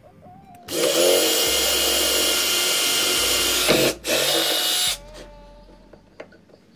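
Cordless drill running at steady full speed, drilling holes through a plastic speaker spacer ring into a car door trim panel: one run of about three seconds, a brief stop, then a short second burst.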